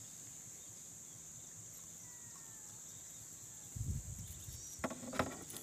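Steady high-pitched chorus of insects, with a faint bird whistle in the middle. From about four seconds in come low rumbles and a few sharp clicks and knocks.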